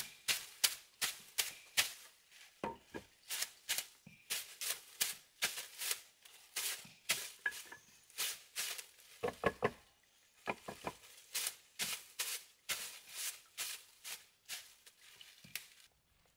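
A knife chopping leafy greens on a wooden surface: quick, sharp chops about three a second, with a short pause about two-thirds of the way through, stopping just before the end.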